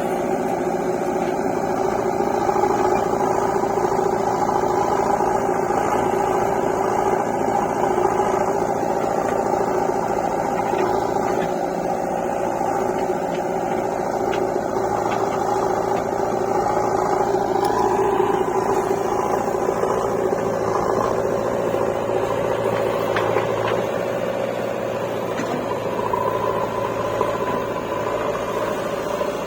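Diesel engine of a JCB 3DX backhoe loader running steadily under working load, its pitch shifting a little now and then as the throttle changes.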